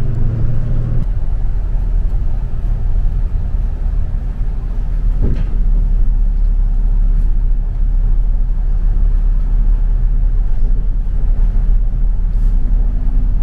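Bus engine running with a steady deep rumble; its engine note changes about a second in, and there is a single short knock near the middle.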